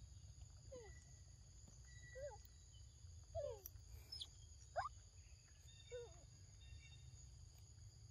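Faint animal calls: about five short squeaky cries, some falling and one rising in pitch, spaced a second or so apart, over a low rumble and a steady high-pitched drone.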